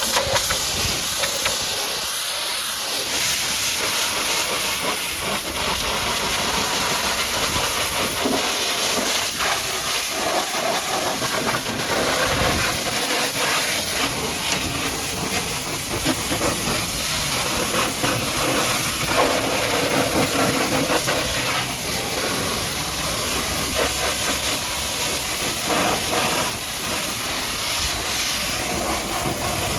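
High-pressure washer jet spraying water against a muddy truck: a steady, loud hiss with spatter that shifts as the jet moves across surfaces.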